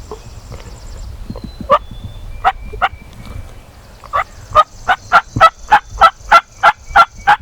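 A series of turkey yelps: three single yelps, then a run of about a dozen evenly spaced yelps at about three a second. Faint songbird chirps and a low wind rumble sit underneath.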